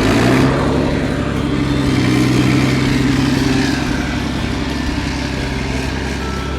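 Tractor engine running steadily with a loud, even drone.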